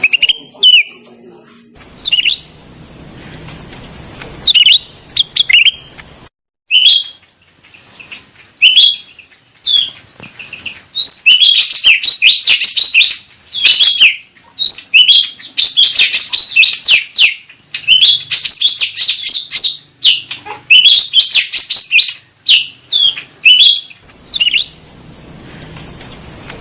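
Cucak rante bird calling with loud, high chirps: scattered notes at first, then a fast, dense run of chirping from about eleven seconds in, easing near the end.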